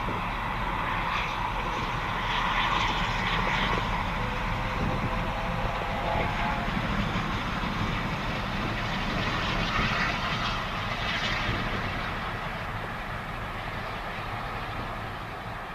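LNER A4 Pacific steam locomotive No. 4464 Bittern passing at speed with its train, a steady roar of exhaust and running train noise that fades over the last few seconds as it draws away.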